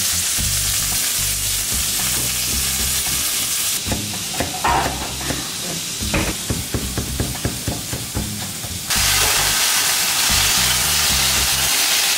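Skewered chicken seekh kababs sizzling in hot oil in a grill pan. About four seconds in, a knife chops fresh herbs on a wooden cutting board in quick knocks for about five seconds. Then the sizzling returns.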